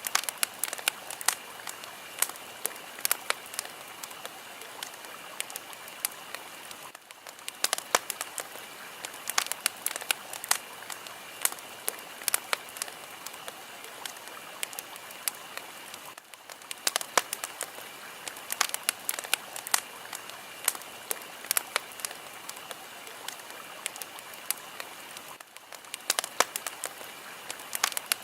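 Fire crackling: a steady hiss dotted with many sharp pops and snaps, dipping briefly about every nine seconds.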